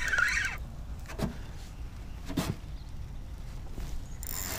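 Spinning reel cranked briefly, giving a wavering whir that stops about half a second in. A low background rumble follows, with two faint knocks about one and two and a half seconds in.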